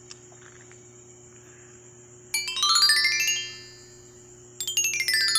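Steady cricket chorus with a low hum under it. About two seconds in, and again near the end, a quick falling run of bright chime-like notes sounds, each run about a second long and much louder than the crickets.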